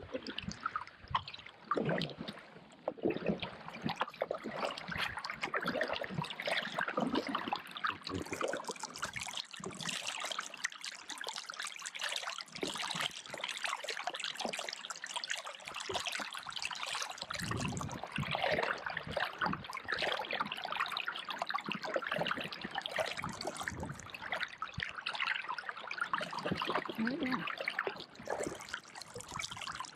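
Close water trickling and dribbling in many small splashes, varying but never stopping.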